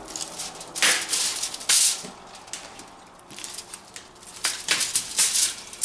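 Chef's knife sawing through a rack of smoked ribs on a foil-lined baking sheet: several short, crisp scraping strokes with the foil crinkling, separated by quieter pauses.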